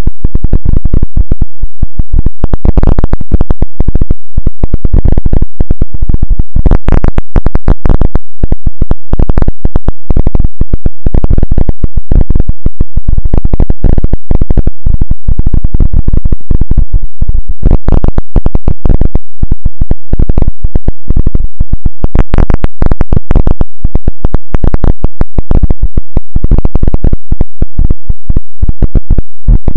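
Harsh, distorted electronic noise clipped at full level: a dense stream of rapid, irregular crackling pulses, heaviest in the low end.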